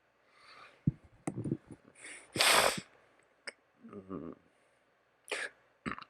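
A person coughs once, about two and a half seconds in, with a few short low throat sounds around it. Scattered small sharp clicks of LEGO pieces being handled are heard before and after.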